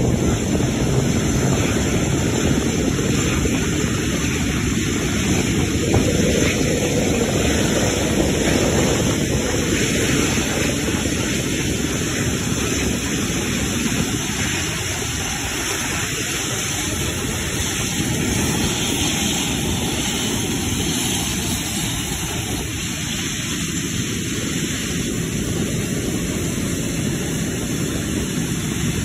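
Qantas Airbus A380's four Rolls-Royce Trent 900 jet engines running steadily at low taxi power as the aircraft rolls past close by, a continuous jet noise that eases slightly in the second half.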